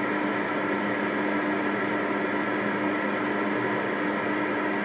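CB radio speaker putting out steady static hiss with a low hum and a higher steady buzz: an open channel or unmodulated carrier coming through the receiver.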